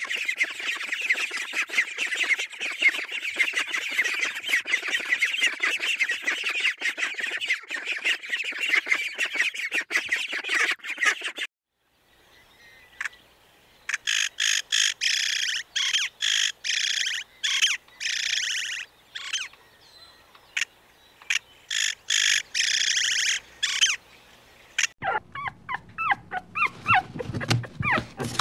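A flock of domestic ducks quacking and chattering nonstop, cut off about eleven seconds in. After a short gap, a bird calls in clusters of short, high calls with pauses between. Near the end, puppies whimpering and yipping.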